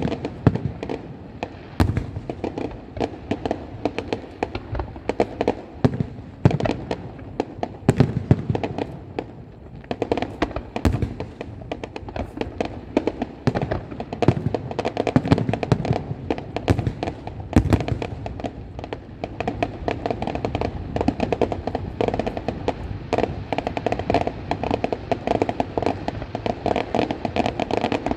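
Firecrackers and fireworks going off in a dense, continuous string of sharp pops and bangs, several a second, with louder reports scattered through.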